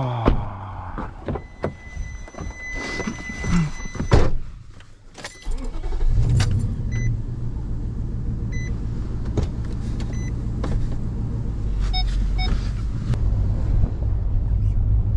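Inside a Nissan pickup's cab: a dashboard warning chime sounds as a steady tone for about three seconds, then a door slams shut about four seconds in. The engine then runs steadily as the truck drives off down a dirt track, and the chime keeps dinging singly every second and a half or so.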